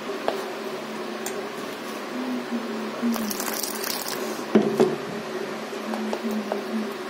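Gram-flour batter squishing as it is stirred with a spoon in a steel bowl, with water poured in for about a second, three seconds in, and one loud knock of the spoon against the bowl soon after.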